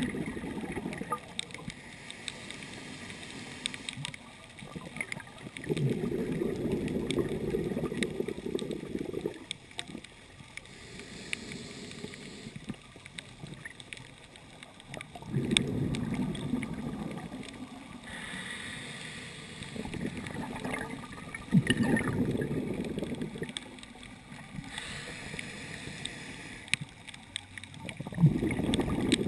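Scuba diver's regulator breathing heard underwater through a waterproof camera housing. Several long bubbling exhalations, each a few seconds long, come about every six to seven seconds, with a softer hiss of inhalation between them.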